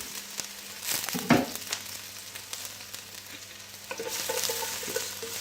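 Garlic sizzling in hot vegetable oil in a stainless steel pan, with a utensil clicking and scraping against the pan as it is stirred.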